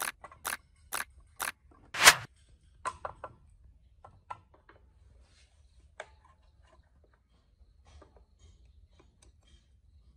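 Metal engine parts knocking and clicking against each other as a metal plate and a sprocket are handled and fitted onto a motorcycle engine's crankcase. There is a quick run of sharp knocks over the first two seconds, the loudest about two seconds in, then fainter scattered clicks.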